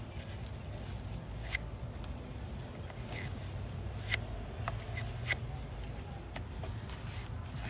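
Wire battery terminal brush scraping and twisting on a battery cable connector to clean it to bare metal. There are several short, sharp scratchy strokes over a steady low hum.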